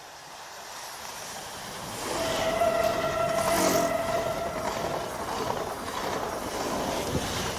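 PESA Dart ED161 electric multiple unit passing at speed: a rushing noise swells from about a second in and stays loud as the train goes by. A steady tone sounds over the first few seconds of the pass.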